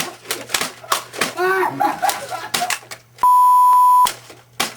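Airsoft guns firing: a run of sharp cracks at irregular intervals. About three seconds in, a loud steady beep tone, edited over the audio, lasts just under a second and cuts off sharply.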